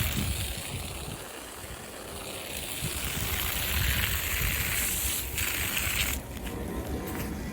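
Water running out of an open PVC hose bib, a steady hiss with low wind rumble on the microphone; the hiss drops away about six seconds in.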